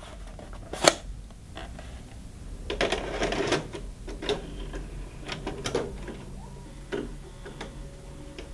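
A VHS cassette pushed into a VCR's slot and the deck's loading mechanism taking it in: a sharp click about a second in, then a cluster of clunks, rattles and motor whirring, with scattered clicks after, over a steady low hum.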